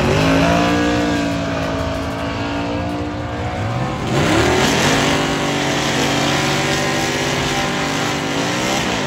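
Drag-racing cars' engines accelerating down a drag strip, the pitch climbing as they pull away. A second climb in engine pitch starts about four seconds in and holds steady until near the end.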